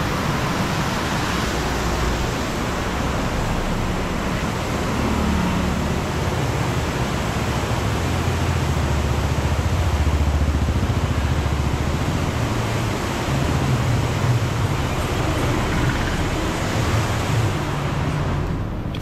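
Loud, steady rush of floodwater pouring over a dam spillway, with a deep rumble underneath that swells a little around the middle.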